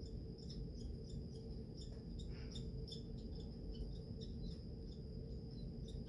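Squirrel chattering: a run of short, high chirps repeating about three times a second, over a steady faint high whine and low hum.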